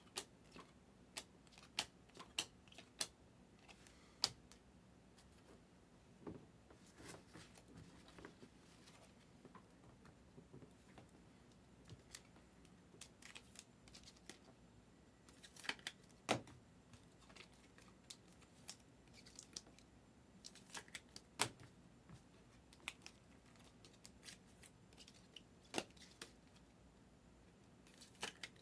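Faint, sharp clicks of Donruss Optic trading cards being flicked through one at a time, about two a second at first. Later the handling noises are sparser, with a couple of louder snaps about 16 and 21 seconds in.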